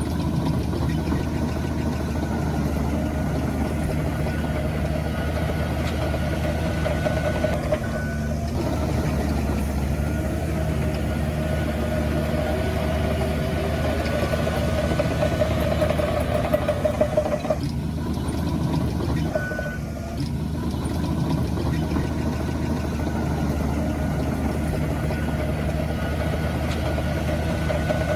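Diesel engines of heavy earthmoving machinery running steadily, with a continuous whine over the drone. The sound shifts abruptly a few times.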